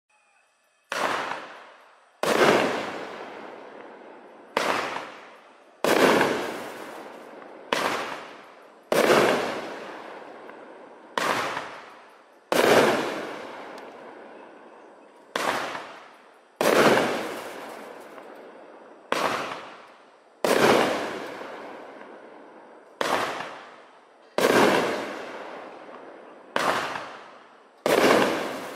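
Shogun Glitter King 350 g fireworks cake firing its eight vertical shots. Each shot is a launch bang followed a little over a second later by a louder aerial burst that rings out and fades over a couple of seconds.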